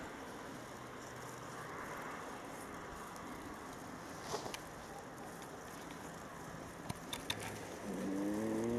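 A cow lowing once near the end, a drawn-out moo of about a second and a half that rises slightly and then falls. Before it there is only a faint steady hiss with a few light clicks.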